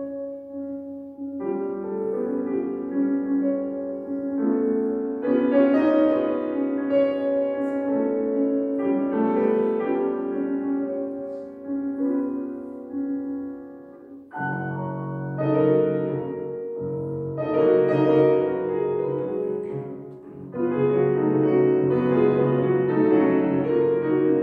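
Concert grand piano playing a slow passage of sustained chords in phrases that swell and fall back. A little past halfway it dips quiet, then comes in with a deeper, louder chordal phrase.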